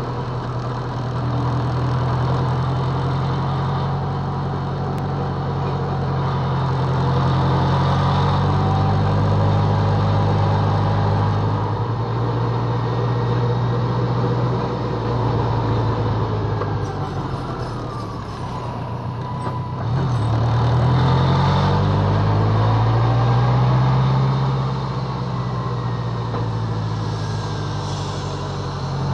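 BMW K1200LT motorcycle's inline-four engine running at low road speed, heard from on the bike, its pitch rising and falling with throttle and gear changes. It drops back about two-thirds of the way through, then climbs again.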